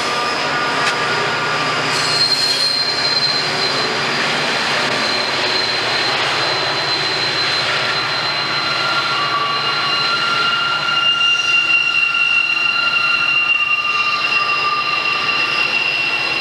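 Freight cars rolling past on a curve, their wheel flanges squealing in several steady, high, ringing tones over the continuous rumble of the wheels on the rails.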